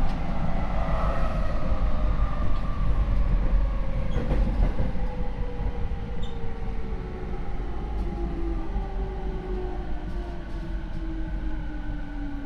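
Rinkai Line 70-000 series electric train with a Mitsubishi IGBT inverter and MT73 traction motors, slowing down. Several motor and inverter whines fall steadily in pitch over the rumble of wheels on rail, and the sound grows gradually quieter. This car's motors are noted as abnormally loud.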